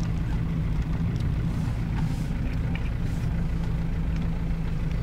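Car driving steadily on an asphalt road, heard from inside the cabin: a constant low engine hum with tyre and road noise.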